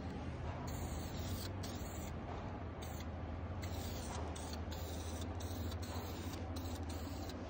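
Aerosol can of primer hissing as it sprays, over the steady low hum of a squirrel-cage fan running.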